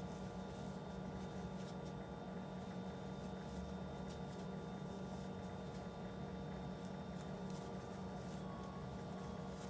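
Steady low hum of room tone with a few thin steady tones, and faint soft ticks and rustles from a crochet hook working yarn.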